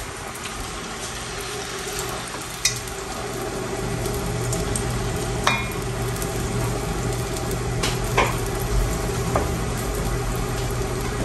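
Serabi batter sizzling in the oiled cups of a hot cast iron pan on a gas burner, over a steady low hum. A few light clicks ring out as the spoon knocks against the batter bowl and the pan.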